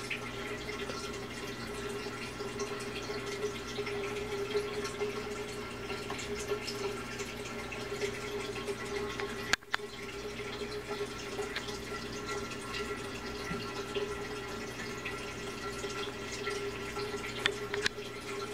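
Aquarium water bubbling and trickling from the bubble column, over a steady low hum from the tank's equipment. The sound drops out briefly about halfway through.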